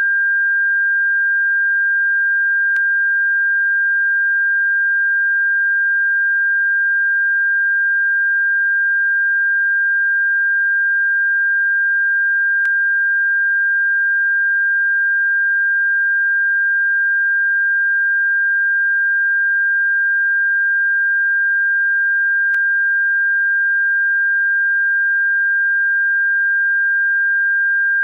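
Steady pure sine tone at about 1.6 kHz, played as a bird-repellent frequency, holding one unchanging pitch, with a faint click about every ten seconds where the tone loops.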